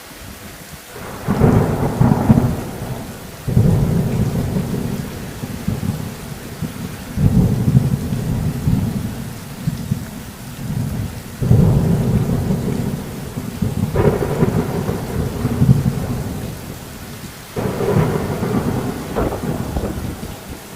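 Steady rain falling, with about six thunder rumbles laid over it as edited-in sound effects, each starting suddenly and rumbling low for a few seconds.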